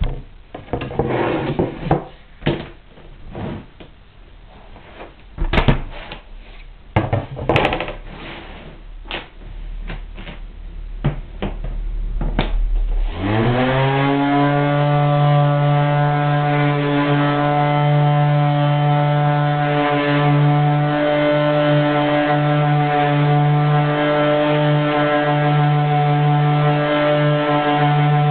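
Wooden building-block pieces knock and clatter against each other and the board as they are pushed into place. About halfway through, a random orbital sander with a felt buffing pad starts up: its motor pitch rises, then settles into a steady hum as it buffs the oiled blocks.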